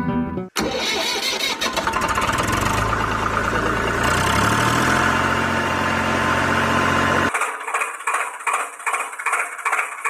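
Tractor engine sound effect: an engine starts and runs steadily, its pitch stepping up about four seconds in. About seven seconds in it changes to a thinner sound pulsing about three times a second.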